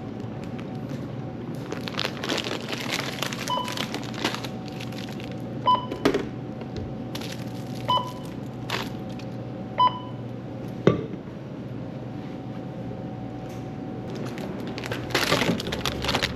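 Four short electronic beeps about two seconds apart, typical of a store checkout barcode scanner reading items, with a few sharp knocks and handling clatter over a steady electrical hum.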